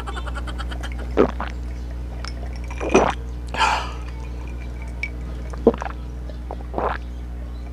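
A man gulping a drink from a glass, picked up close by a clip-on microphone: about five separate swallowing sounds spread over several seconds.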